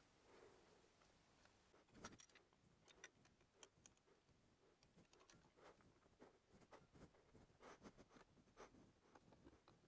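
Near silence with faint scattered clicks and rustles of hands and gloves handling parts on a motorcycle engine, and one slightly louder knock about two seconds in.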